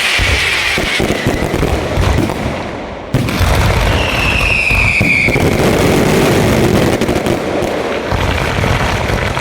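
Aerial fireworks display going off in a dense, rapid barrage of bangs and crackling, thinning briefly about three seconds in and then resuming, with a short high whistle about four seconds in.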